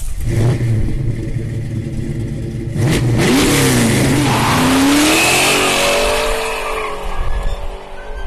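1984 Ford Bronco II's 2.8-litre V6 running steadily, then revving up and down about three seconds in and climbing in pitch as it accelerates. The sound fades near the end.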